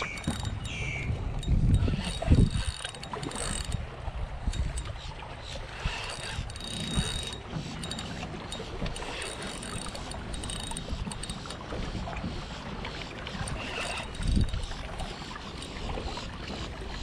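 Wind buffeting the microphone, with the gears of a Daiwa spinning reel clicking and whirring now and then as a fish is fought on the line.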